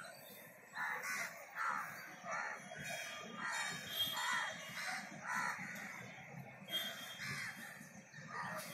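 Birds calling: a run of short, repeated calls, one every half second or so, beginning about a second in.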